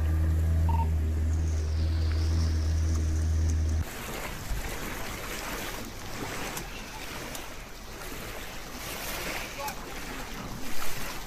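A steady low mechanical hum that cuts off about four seconds in, replaced by rushing wind and water noise with wind buffeting the microphone. A couple of brief loud bumps come near the end.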